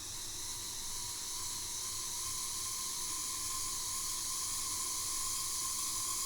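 Small electric motor of a model locomotive running steadily on the bench: a thin whine over a hiss. The owner is trying to trace a noise from it, which he later takes for a motor problem.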